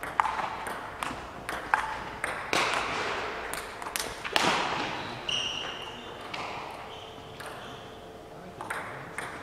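Table tennis ball clicking sharply off bats and table in a quick rally during the first two seconds. Two louder rushing noises follow about two and a half and four and a half seconds in, then a quieter stretch, and the ball clicks again near the end as play restarts.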